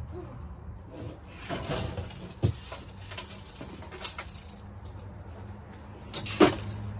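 Household clutter being shifted by hand: several separate knocks and clatters over a steady low hum, the loudest knock near the end.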